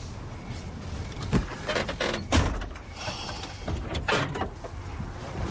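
The heavy door of a 1967 Chevrolet Impala being opened and shut as someone climbs in: three thumps over a low rumble, the second the loudest.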